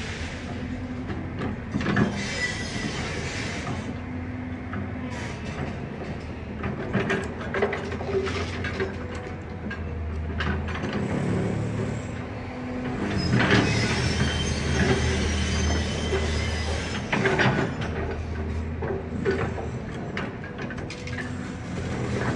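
Excavator engine running steadily under load, with repeated knocks and clatter and stretches of high metallic screeching as the machine works at demolishing a building.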